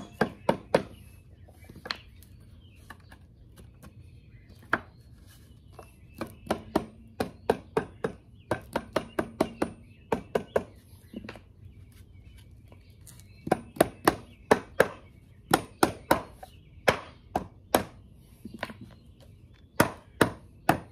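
Rubber mallet striking the wooden boards of a door frame, driving the frame together around black wrought iron balusters. Dozens of sharp knocks come in quick runs of several blows, with short pauses between the runs.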